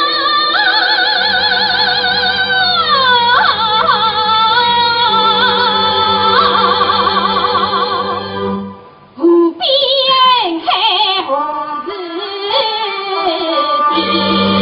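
Shanghai opera (Huju) aria with traditional band accompaniment: a long held note wavers and then glides down, over steady sustained tones. About nine seconds in the sound breaks off briefly, then comes a short falling phrase and the accompaniment carries on.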